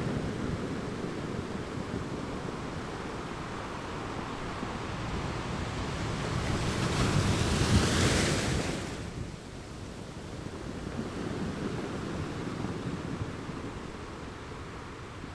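Ocean waves washing onto a shore: a steady surf wash that builds to one louder breaking wave about seven to eight seconds in, then falls away quickly.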